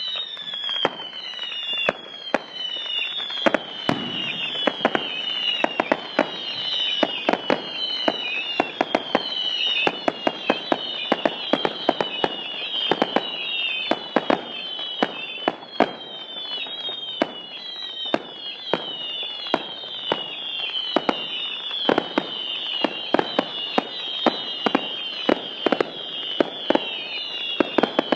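A continuous fireworks barrage: many overlapping whistles that fall in pitch, one after another, mixed with rapid sharp bangs throughout.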